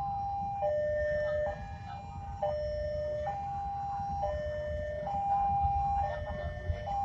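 Indonesian railway level-crossing warning alarm sounding its two-tone ding-dong, a higher and a lower tone taking turns just under a second each, about four times over, over a low rumble: the crossing is closed for an approaching train.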